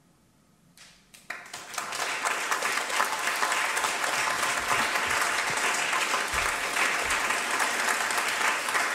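Audience applauding: after about a second of near silence the clapping breaks out and quickly swells to steady, dense applause.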